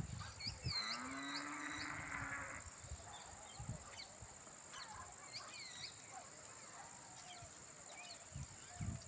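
Outdoor ambience: small birds chirping on and off over a steady, high-pitched insect drone. About a second in, a drawn-out animal call lasts nearly two seconds.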